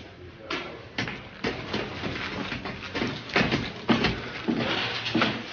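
Brisk footsteps on a metal-grating staircase, a few sharp steps a second starting about half a second in.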